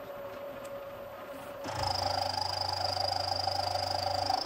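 Milling spindle running with a steady whine. About one and a half seconds in, the gear cutter bites into the pinion blank and cuts a tooth slot with a loud, rhythmic rumbling cutting noise, which stops abruptly near the end as it clears the cut. This is a roughing pass on the gear teeth.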